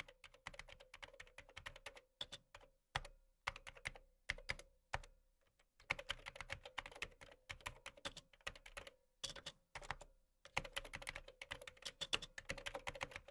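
Computer keyboard typing, used as a sound effect: rapid runs of key clicks, broken by short pauses about two seconds in, around five seconds in and a little past ten seconds.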